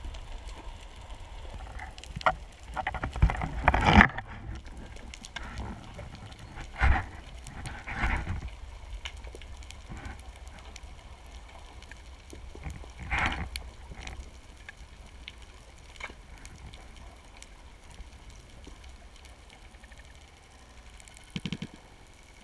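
Underwater sound heard through a diving camera housing: a steady low rush of water, broken by several loud scraping, rustling bursts, the loudest about three to four seconds in, and a few quick clicks near the end.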